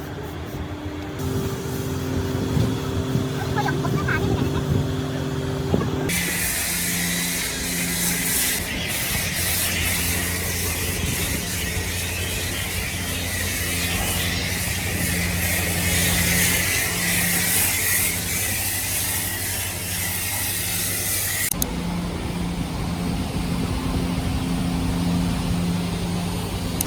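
Self-service car wash high-pressure wand spraying water, a loud steady hiss that starts about six seconds in and cuts off sharply about fifteen seconds later, over a steady machine hum.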